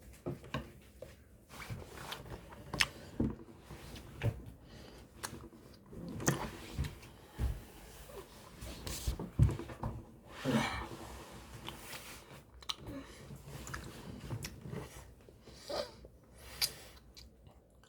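Irregular clicks, taps and rustling of small objects being handled close to the microphone, several sharp taps standing out.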